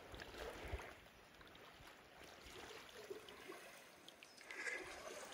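Faint sloshing and splashing of river water around the legs of people wading through a shallow river, with a few low knocks early on and a brief higher-pitched sound near the end.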